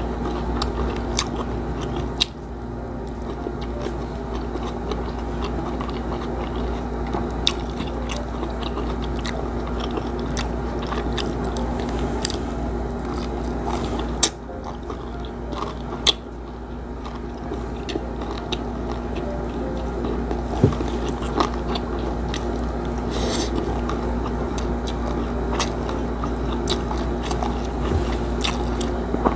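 Close-miked chewing of crispy fried milkfish, with scattered crunches and wet mouth clicks, over a steady low hum.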